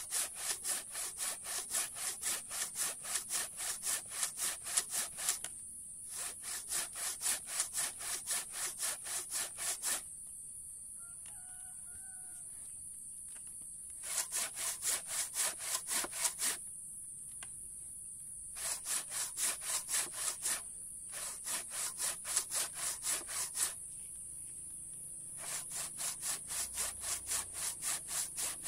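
Handsaw cutting through very hard mangosteen wood, about two strokes a second in runs of several seconds with short pauses between. A rooster crows once during the longest pause, near the middle.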